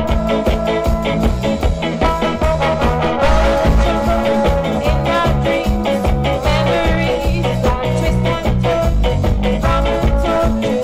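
Live band music with a steady beat, bass line and held melody notes.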